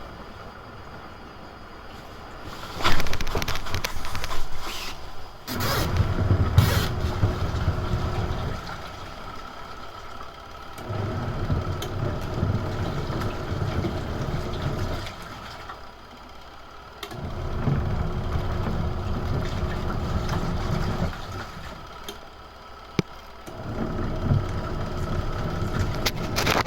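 Retro-style washing machine running its wash cycle: the motor drives the agitator in low rumbling spells of about four seconds, stopping briefly between each, as in a reversing wash action.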